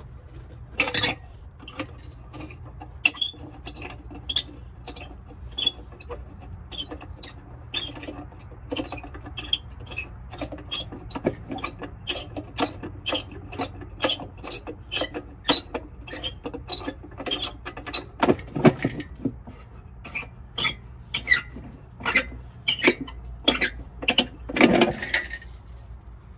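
Rusted metal air cleaner on a 1957 Plymouth being worked loose by hand and lifted off the carburettor: a run of short squeaks and scrapes of rusty metal, about two a second, with longer, louder scraping twice near the end as it comes free.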